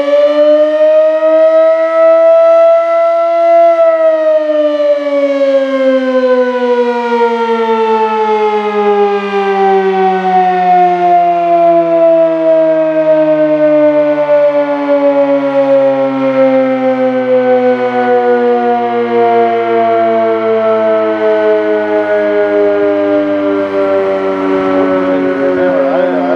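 Sterling M-5 electromechanical fire siren sounding one loud wail: it climbs to its top pitch over the first few seconds, then the pitch falls slowly and steadily as the rotor winds down.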